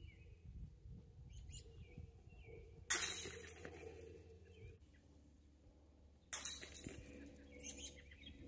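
Discs putted into a disc golf basket hitting the metal chains twice, about three seconds apart. Each hit is a sudden jingling clatter that rings on for a second or so.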